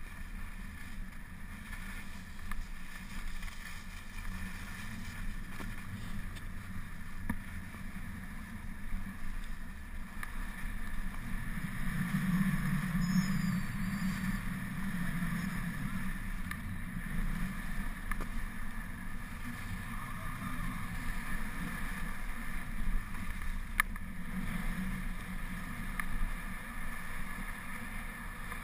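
Skis running over packed, tracked snow: a steady rushing and scraping, with wind on the microphone. It swells for a few seconds around the middle.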